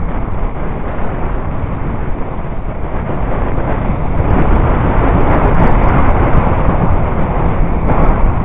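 Bobsleigh running down an ice track, heard from on board: a loud, steady rumble of the sled sliding over the ice with rushing air, growing louder about halfway through, with a few sharp rattles and scrapes.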